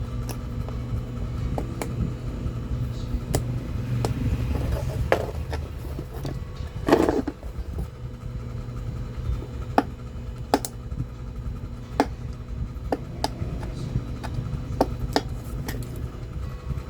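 Irregular clicks and scrapes of a tool working away the glue between a treadmill's circuit board and its aluminium heatsink, with a longer scrape about seven seconds in, over a steady low hum.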